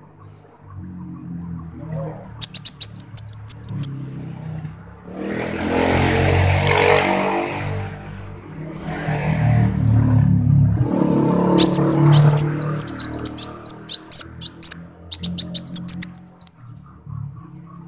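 Male kolibri wulung sunbird singing: runs of rapid, high, thin chirps about two seconds in, then a longer, louder stretch of twittering song from about the middle until near the end. Between the song bursts, a rushing, rumbling noise swells and fades.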